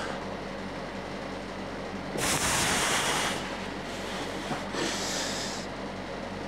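Two forceful hissing exhales through the mouth from a lifter working through dumbbell bench press reps: one about two seconds in lasting about a second, another near five seconds. A steady low hum sits underneath.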